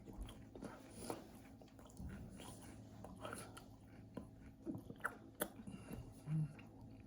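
Mouth sounds of a person chewing a Rice Krispie treat square: soft, irregular clicks and smacks, with a brief low hum about six seconds in.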